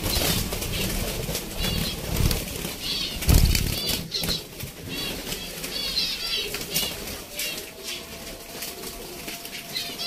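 Finches in an aviary chirping, short high calls repeated throughout, with a flutter of wings and low thumps in the first few seconds, the loudest about three seconds in.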